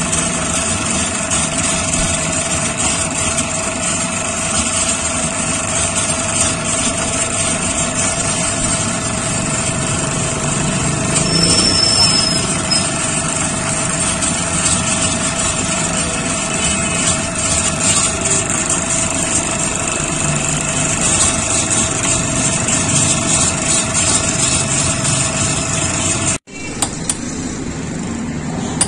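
A motor-driven cast-iron ice-shaving machine runs steadily with a constant hum while its blade grinds a block of ice into shaved ice. The sound cuts off abruptly about two seconds before the end.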